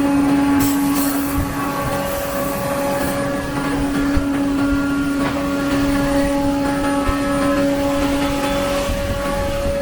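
CNC wood router running, its spindle whining at a steady pitch while the bit cuts wood, with a brighter hiss of cutting in the first few seconds.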